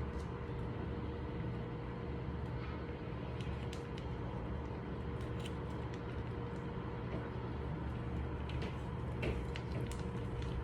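Steady low droning noise from a stovetop where pasta is boiling and cream sauce is heating, with scattered faint clicks and ticks.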